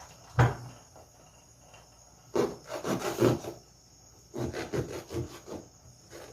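Kitchen work preparing passion fruit for juice: a sharp knock about half a second in, then two spells of rubbing and scraping, each lasting about a second.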